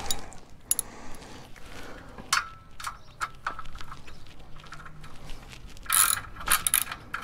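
Hand ratchet wrench with a socket turning a bolt on a steel motorcycle jack: short runs of pawl clicks, the densest and loudest about six to seven seconds in.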